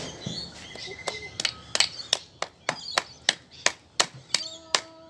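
Claw hammer striking the steel laminated stator casing of an air-conditioner compressor motor in a steady run of sharp blows, about three a second, starting about a second in. The hammering is meant to knock the copper windings loose from the steel.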